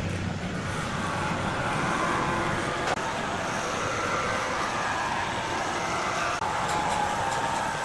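Large sawmill wood saw cutting through timber: a steady, loud cutting noise with a whine that wavers slightly in pitch, dipping briefly for an instant about six and a half seconds in.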